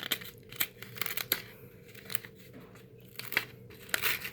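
Plastic and foil packaging of a trading-card booster blister pack being torn open, giving irregular short crinkles and crackles.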